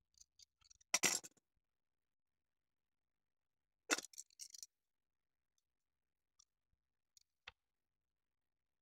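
Light clicks and scrapes of small plastic model-train parts handled by hand: a short cluster about a second in, another about four seconds in, then a few faint ticks and a single click.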